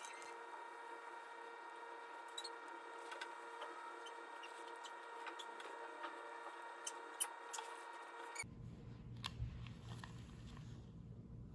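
Faint steady hum with several pitches, with soft scattered clicks and taps from handling a cream-filled piping bag. About eight seconds in the hum cuts off and a low rumble takes over.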